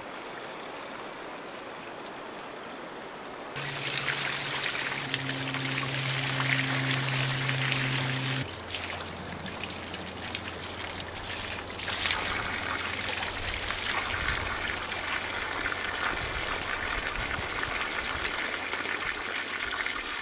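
Spring water pouring from a pipe and splashing onto rocks and into a container being filled, a steady splashing. It jumps abruptly louder about three and a half seconds in and changes character again later. A low steady hum sounds under it from about four to eight seconds in.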